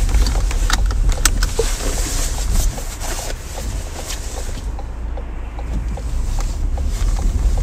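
Car engine and road noise heard from inside the cabin, a steady low rumble that eases off for a few seconds in the middle and rises again near the end as the car moves off.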